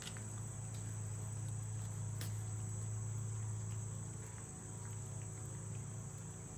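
Steady high-pitched chorus of crickets over a low steady hum, with a single sharp click about two seconds in.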